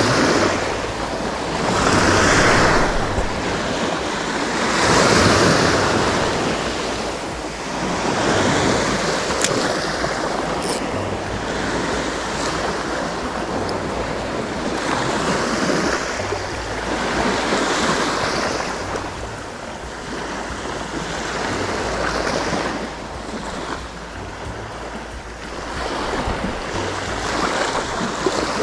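Sea waves breaking on a beach, the surf swelling and fading every three or four seconds, with wind rumbling on the microphone.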